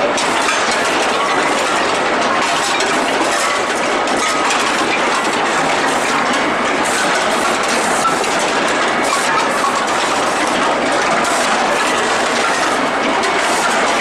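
Steel-ball hot-rolling line running: a loud, continuous dense metallic clatter of machinery, thick with small clanks.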